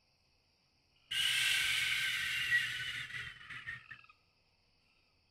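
A man's long, slow breath out, a sigh-like exhale starting about a second in and trailing off after about three seconds.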